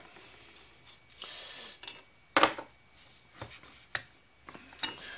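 Handling noises from a chainsaw engine's metal parts on a workbench as the cylinder is taken in hand: a short rub, then a sharp metal click about halfway through and a few lighter clicks after it.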